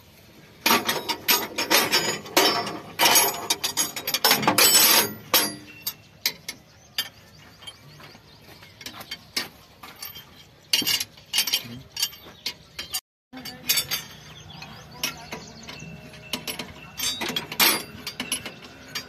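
Metal hand tools clicking and clanking as a spanner works the fittings of a tractor's hydraulic spool valve block: fast, dense runs of sharp clicks over the first five seconds or so, then sparser, scattered clicks.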